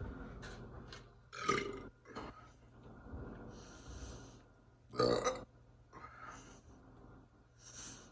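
A person burping: three loud burps, about a second and a half in, about five seconds in (the loudest) and a shorter one near the end, with a few fainter sounds in between.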